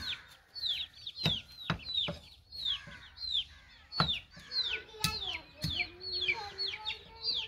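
A knife chopping through chicken feet on a board: several sharp chops at irregular intervals. Chickens cluck and chirp throughout with quick, falling calls.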